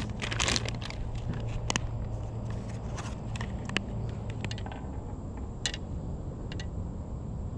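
Plastic bait packaging crinkling and rustling as soft-plastic lures are handled, with scattered small clicks, over a low steady background. The crinkling is densest in the first second.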